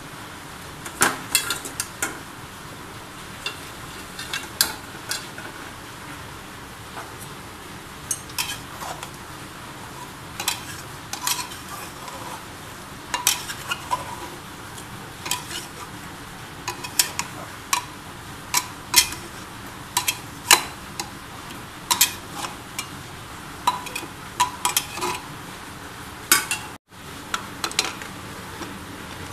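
A steel spoon stirring vegetables in an aluminium pressure cooker, clinking and scraping against the pot in many irregular sharp knocks over a steady hiss.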